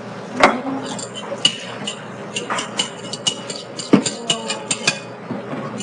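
A utensil clicking and clinking against a ceramic dish or bowl in a quick, irregular run of strikes, several of them ringing briefly. Louder knocks come about half a second in and again about four seconds in.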